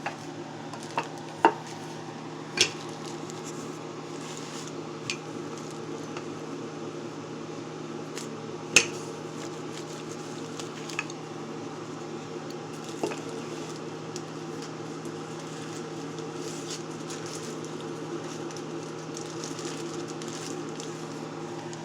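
Scattered clinks and knocks of kitchen dishes and utensils while a pie is being prepared, the loudest about nine seconds in, over a steady low hum.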